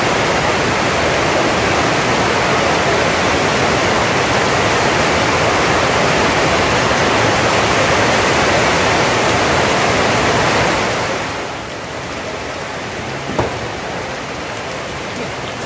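Rain falling on the roof as a steady, loud hiss that drops off noticeably about eleven seconds in. Near the end there is a single sharp click of a table tennis ball being struck.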